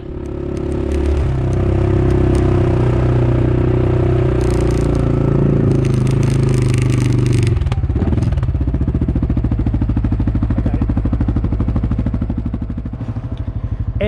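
Kubota compact tractor's diesel engine running close by, with some clattering about halfway through. After about eight seconds the engine note changes to a fast, even throb.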